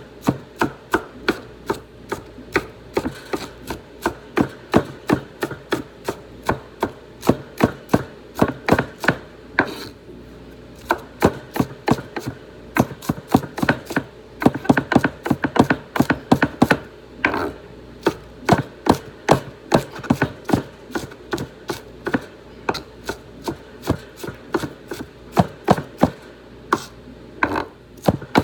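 Kitchen knife chopping an onion on a cutting board in steady, even strokes, about two to three a second, pausing briefly a couple of times.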